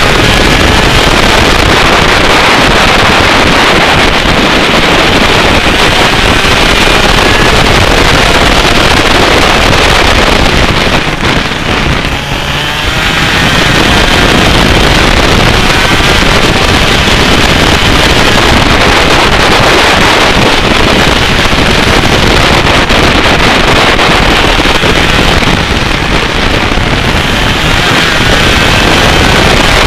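125cc two-stroke kart engine running hard at racing speed, loud and distorted with wind buffeting the microphone; the engine note rises and falls and drops off briefly about twelve seconds in, during a corner.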